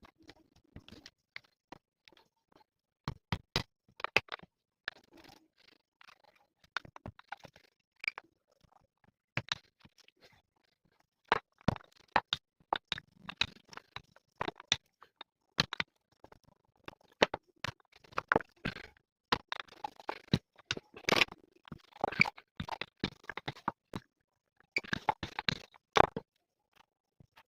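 Kitchen work sounds: irregular clicks, taps and knocks of utensils, with scraping between them, coming in bursts with short pauses.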